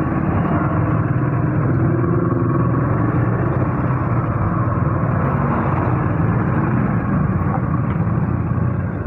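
Motor scooter riding at low speed in traffic, heard from the rider's seat: a steady engine hum mixed with road and wind noise, with other motorcycles and cars around.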